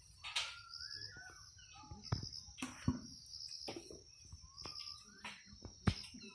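Birds chirping: a high chirp repeating about once a second along with other short calls, and a few sharp clicks.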